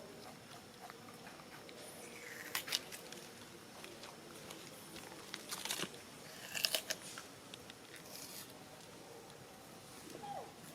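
Crisp crunching and crackling from monkeys, coming in a few short clusters, with a brief faint squeak about two seconds in and another near the end.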